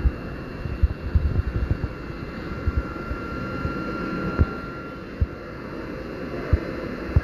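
NSS M-1 Pig commercial vacuum running steadily with a faint high whine. Several short low knocks sound over it as the long extension wand is handled at the ceiling.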